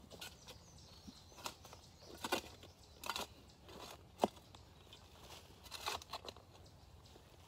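Small short-handled shovel digging into soil: faint, irregular scrapes and knocks a second or so apart, with one sharper knock a little after four seconds in.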